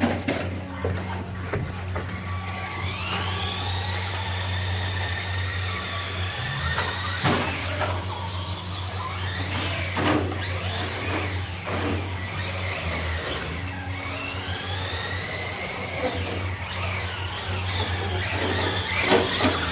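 Battery-powered RC car's electric motor whining, rising in pitch as it speeds up and then holding steady, twice, with a few sharp knocks from the car on the track. A steady low hum runs underneath.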